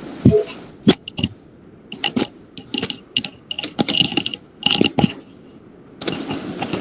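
Handling noise: a string of irregular light clicks and rattles, then a steady hiss starts about six seconds in.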